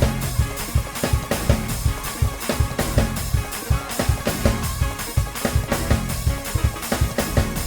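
Fast gospel praise-break groove on a drum kit, with dense kick, snare and cymbal hits over sustained keyboard chords and bass.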